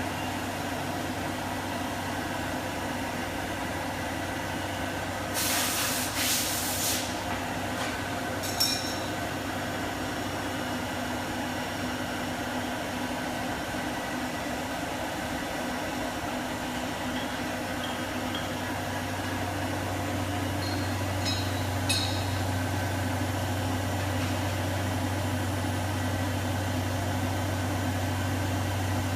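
Fadal VMC6030 vertical machining center running under power: a steady low hum that grows stronger about two-thirds of the way through. Near the start comes a short burst of air hiss, and a few sharp clicks sound after it and again later.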